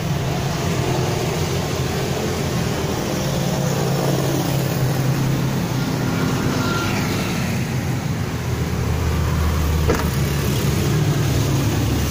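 A Toyota Calya's 1.2-litre dual VVT-i engine idling with a steady low hum, and a single knock about ten seconds in as the tailgate is shut.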